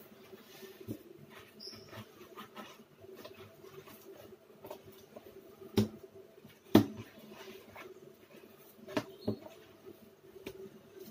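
Hands kneading soft roti dough in a bowl: small sticky squelching and patting sounds, broken by a few sharp knocks, the loudest two near the middle. A faint steady hum runs underneath.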